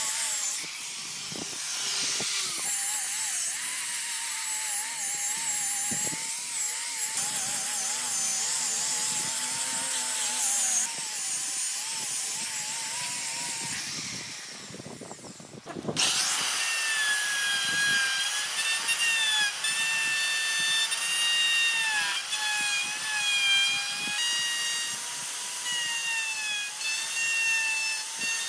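A small angle grinder with a sanding disc sanding a wooden slab, its motor whine wavering as the disc is worked across the wood. After a short break about halfway through, an electric router takes over with a high whine that shifts in pitch under load as it trims a wooden edge.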